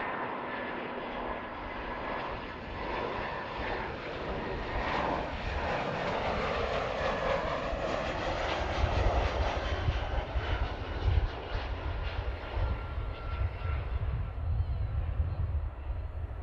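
Airbus A319 airliner's jet engines on landing approach, running steadily with a faint high whine. The sound swells towards the middle, and a deep, uneven rumble joins it in the second half.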